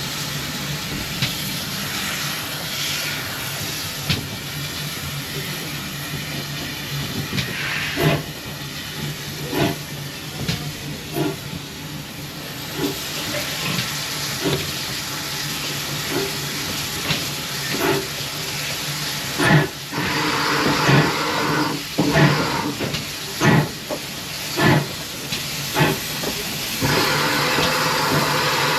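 Steam train running: a steady steam hiss over a low hum, with a series of knocks about a second apart through the middle and latter part.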